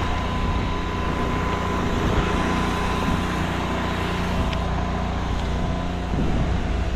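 Soft wash pump running steadily with an even drone.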